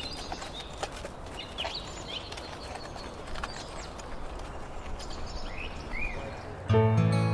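Short bird chirps over a soft outdoor hiss, with a few faint hoof clops in the first two seconds. Strummed acoustic guitar music starts abruptly near the end.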